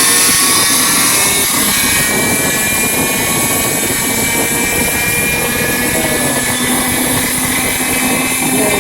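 Rebuilt aircraft electric starter motor spinning up on 24 volts, a loud steady whine whose pitch creeps slowly upward.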